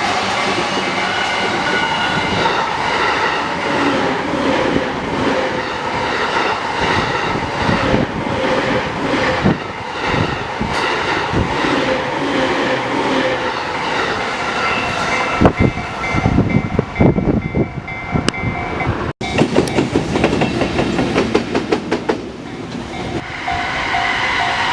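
A JR electric train running through a level crossing, its wheels clacking over the rail joints in a quick even run for the last third. Under it a crossing warning bell rings in a steady repeating pattern.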